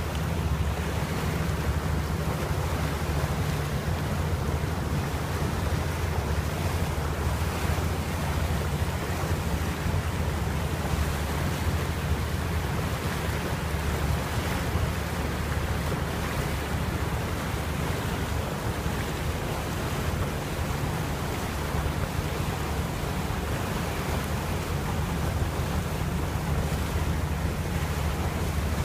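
Wind buffeting the microphone on a boat, over water washing against the hull and a steady low rumble.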